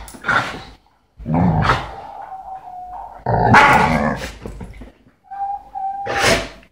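Two dogs wrestling, growling and barking in four short outbursts, the loudest about halfway through.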